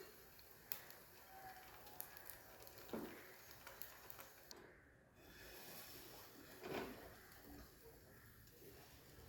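Near silence: faint room tone with a few soft, brief knocks and rustles, about four in all.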